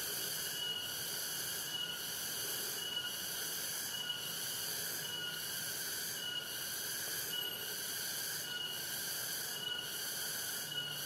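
Steady, shrill chorus of insects in a rice field, with a short chirp repeating a little faster than once a second.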